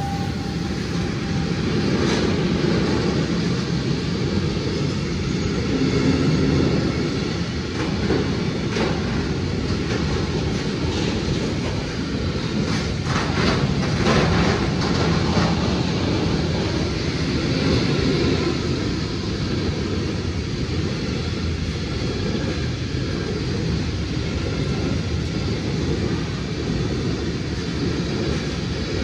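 Lotos freight train hauled by a Newag Dragon 2 electric locomotive rolling past at steady speed, a continuous rail rumble with a run of wheel clicks about halfway through.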